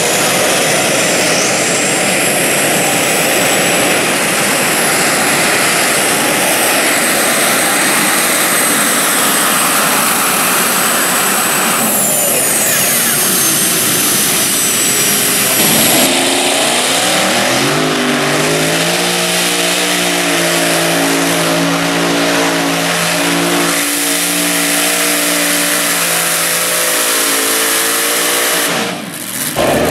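Modified pulling tractors' engines running flat out under load. For the first half a dense roar carries a high whine. Partway through, the sound changes to a deep multi-note engine pitch that climbs and then holds steady.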